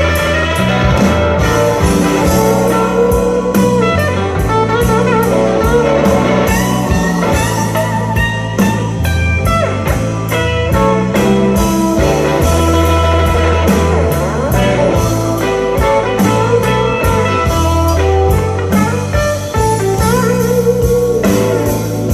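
Blues-rock music played back through loudspeakers: an instrumental passage of electric guitar over bass and drums, with no singing.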